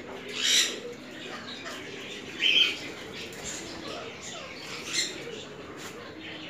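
Caged parrots screeching: two short loud screeches, about half a second in and again about two and a half seconds in, with a fainter bird call near the end.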